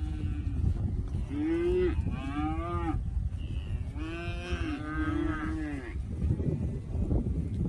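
Dairy cattle mooing: about five long, arching moos in close succession, some overlapping, over a steady low rumble.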